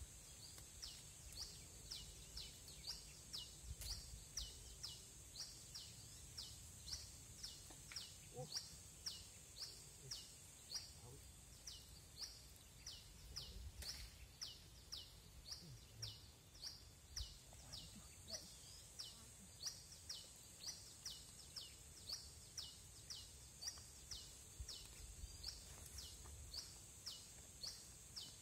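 A bird calls over and over with a short, sharp falling note, about one and a half times a second, over a steady high insect hiss.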